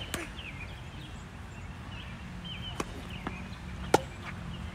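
Tennis ball struck by rackets and bouncing on a hard court during a rally: several sharp pops, the loudest about four seconds in. Birds chirp in the background.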